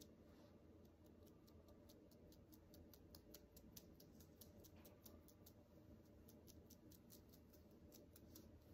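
Near silence with faint, rapid ticking, several ticks a second in runs, from a fingertip flicking the bristles of a small paintbrush loaded with thinned white paint to spatter it.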